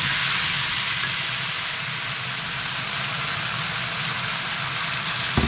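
Chopped chayote and ground meat sizzling steadily in a frying pan, cooking in their own juices and the meat's fat with no water or oil added, over a low steady hum. Near the end, a quick knock of the wooden spatula against the pan.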